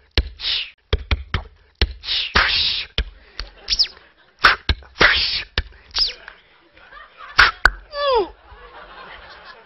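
Mouth-made sound effects by a mime through his headset microphone: sharp clicks and pops, bursts of hissing, and quick high falling whistles, with a falling, wavering glide near the end.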